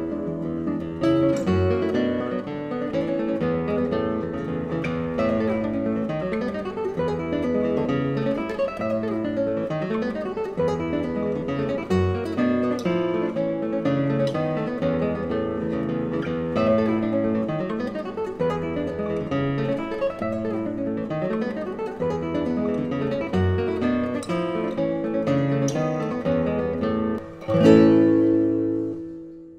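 Background music: acoustic guitar, plucked and strummed, ending with a loud final chord near the end that rings out and fades.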